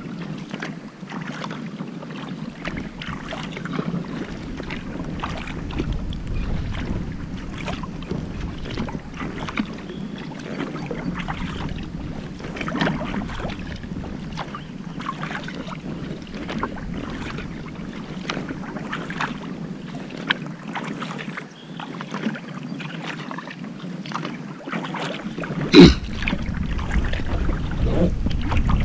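Kayak paddling on a river: paddle blades dipping and splashing with water dripping, in an irregular patter, with some wind rumble on the microphone. A single sharp knock near the end is the loudest sound.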